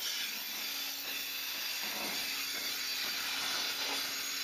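Milking machine vacuum: a steady hiss of air being sucked into the teat cups as a milking unit is put on a cow, over a steady low hum.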